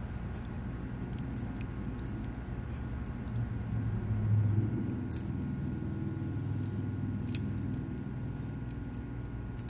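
Close handling of Cat6a cable wires and a small plastic RJ45 load bar: faint scattered ticks and scrapes, with a low rubbing bump about four seconds in, over a steady electrical hum.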